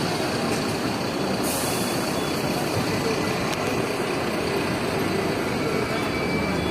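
Steady running rumble of a Hong Kong double-decker tram in motion, with a brief hiss about a second and a half in.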